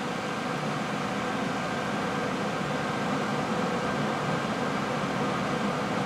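Carrier 92% condensing gas furnace running on after its burners have shut off: the circulating blower moves air in a steady whoosh with a faint steady hum, purging the remaining heat from the heat exchanger.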